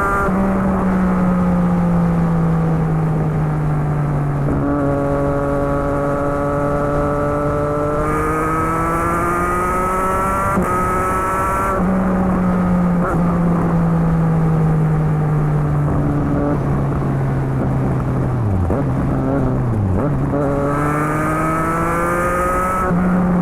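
A 2020 Triumph Street Triple RS's 765 cc inline-three engine running through a Yoshimura Alpha T exhaust with the dB killer fitted, heard while riding. The engine note steps up and down in pitch as the throttle and gears change, dips sharply twice about two-thirds of the way through, then rises again.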